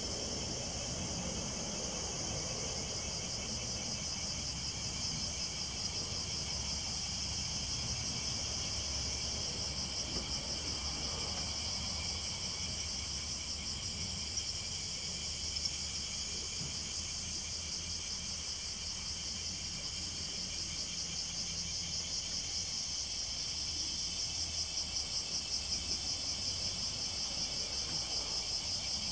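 A chorus of insects chirring steadily in a high, fast-pulsing buzz, swelling into a stronger pulsing near the end.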